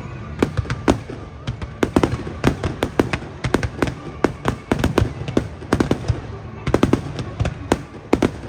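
Fireworks display: a rapid, irregular run of sharp bangs and crackles, several a second, over a low rumble.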